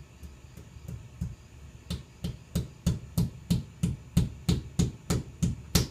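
Hammer tapping wall anchors into holes drilled in brick grout: a few light taps, then about two seconds in a steady run of blows, about three a second, growing harder.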